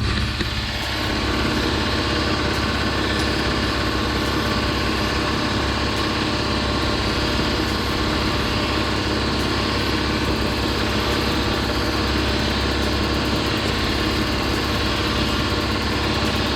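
A small engine or motor running steadily at an unchanging speed.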